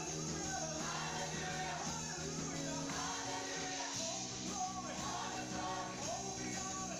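Live band music with a group of women singing over electric guitars and keyboards.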